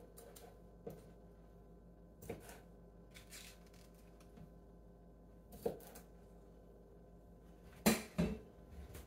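Kitchen knife slicing wiener sausages on a thin plastic cutting board: single taps of the blade on the board, a second or more apart. Two louder knocks come close together near the end.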